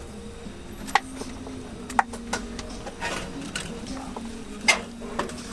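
Three sharp knocks and some lighter scraping as a knife trims raw sweet potatoes by hand and the potatoes are set on a metal roasting rack, over a low steady hum.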